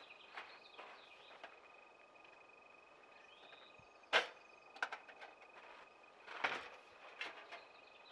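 A few short knocks and clatters of camping gear and containers being handled in the back of a Jeep, the loudest about four seconds in, over a quiet background with a faint steady high tone.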